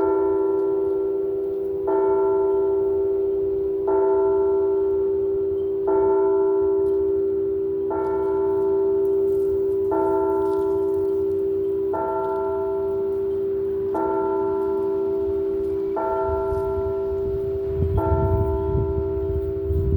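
An 1889 church bell tolling the noon hour: ten strokes, one about every two seconds, each ringing on into the next with a long steady hum. Wind rumbles on the microphone near the end.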